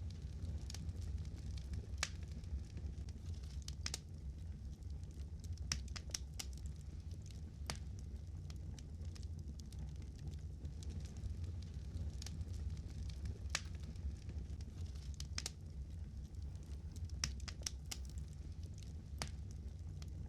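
Fire crackling, with irregular sharp pops and snaps scattered over a low steady rumble.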